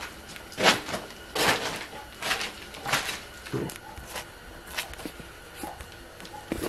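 Knife cutting and hide being peeled from a hanging wild hog carcass during skinning: a string of short scraping strokes, a little faster than one a second.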